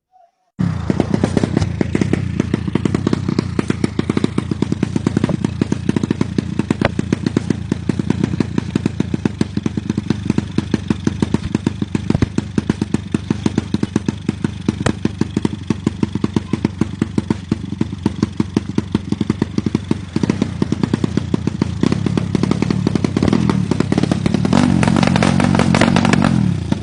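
A broken-down engine running with a loud, regular knock several times a second. Near the end it picks up for a couple of seconds, then drops back. It is an engine that has failed and will not rev.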